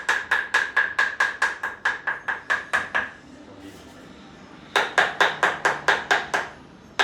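Rapid, even tapping strikes, about five or six a second, each with a short ring. They stop a little after three seconds and start again about a second and a half later.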